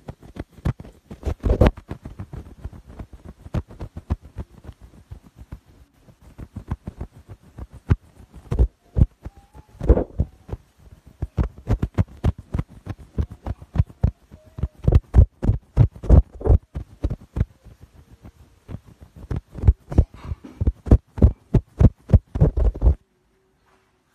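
Irregular dull thumps and rubbing from an ultrasonic cleaning pen's tip being pressed and dabbed repeatedly onto a wine-stained cloth shirt over a hard tabletop. The thumps come several a second at uneven strength and stop abruptly about a second before the end.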